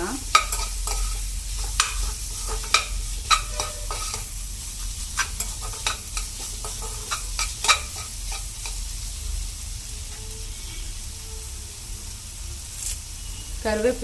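Onion, tomato, crushed garlic and green chilli sautéing in oil in a kadai, a steady sizzle, while the mixture is stirred. Sharp clicks of the stirring utensil against the pan come every second or so, fewer near the end.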